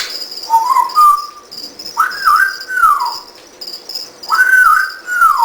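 African grey parrot whistling three phrases. The first is short and rising; the last two rise, waver, then glide down. Crickets chirp steadily behind.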